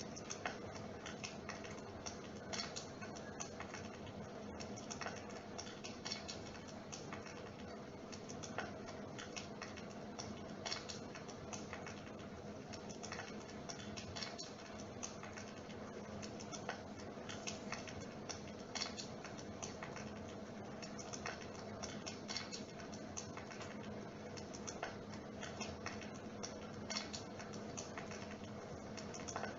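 Dimplex mist-effect electric fireplace running: a steady low hum with a continuous stream of light, irregular crackling clicks.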